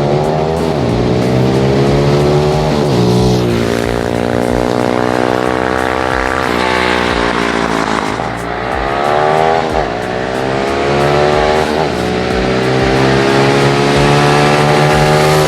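Orion 140cc four-stroke pit bike engine revving, its pitch climbing and falling back several times, with a song's steady low beat underneath.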